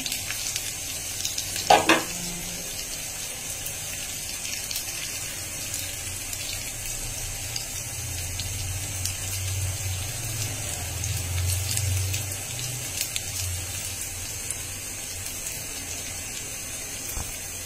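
Oil sizzling steadily in a nonstick pan, with fine crackles, as an egg-mixed pitha shallow-fries. A brief sharp knock about two seconds in, and a low hum swells and fades in the middle.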